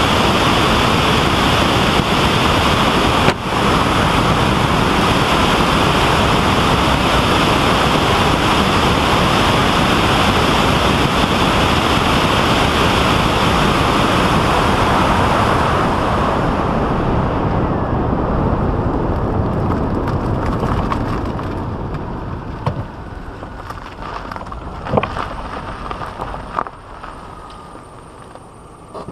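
Road and wind noise of a vehicle travelling at highway speed, a steady rush that fades away as the vehicle slows down over the second half. A few sharp knocks and clicks come as it rolls to a near stop.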